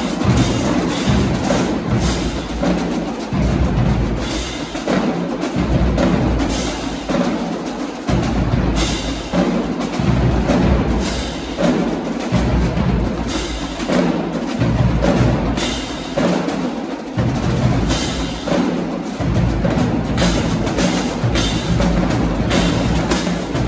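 Marching drumline playing a cadence on snare drums, bass drums and crash cymbals. The cymbals crash in time, and the bass drums drop in and out in phrases of a few seconds.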